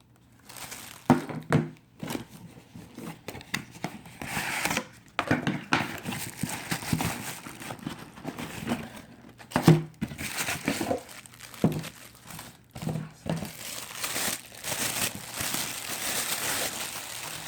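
Packaging being crinkled and rustled as the phone parts are unwrapped and lifted out of the box, with a few sharp knocks from handling.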